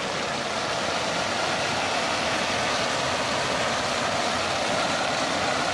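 Steady rush of water pouring down a stone cascade in a terraced garden's water channel, with rain falling; it slowly grows louder.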